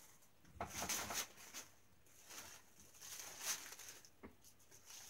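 Thin clear plastic wrapping crinkling and rustling in irregular bursts as it is pulled open and handled, with a short click near the end.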